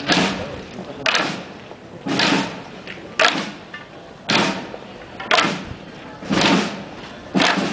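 A procession drum beating a slow, even march, about one stroke a second, each stroke sharp and quickly fading.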